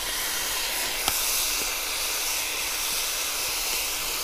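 Chopped tomatoes and vegetables sizzling in hot oil on a steel harrow-disc pan, a steady hiss as the wet tomatoes hit the pan, with one sharp click about a second in.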